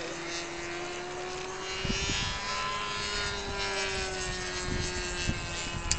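Model Cessna 177 Cardinal's motor and propeller droning steadily in flight, the pitch rising slightly and falling back. Gusty wind rumble on the microphone from about two seconds in.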